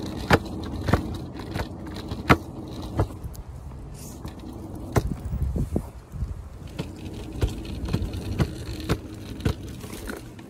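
Hoverboard wheels rumbling over pavement with a faint steady hum, broken by many irregular sharp clicks and knocks.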